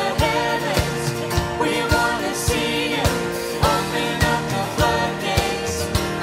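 Christian worship song: a voice singing over a band, with a steady drum beat about two hits a second.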